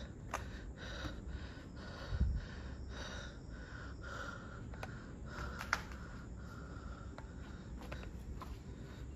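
Faint footsteps and scattered light clicks on a debris-strewn floor over a low steady background hiss, with one dull thump about two seconds in.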